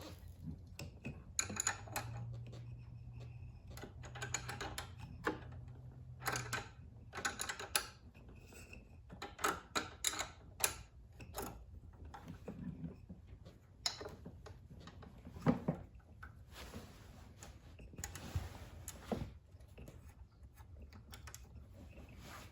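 Scattered, irregular clicks and taps of small hand tools on the metal parts of a small generator engine's valve train as the valves are checked. A low hum runs for about four seconds starting about two seconds in.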